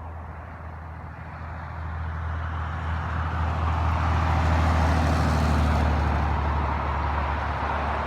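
A motor vehicle passing on the road: a low engine hum and tyre noise swell to a peak about five seconds in, then ease off. No horn sounds.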